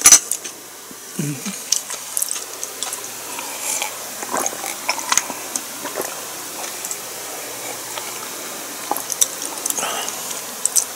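Someone drinking from a glass: small sips and swallows with a few soft clicks scattered through, over a faint steady hiss.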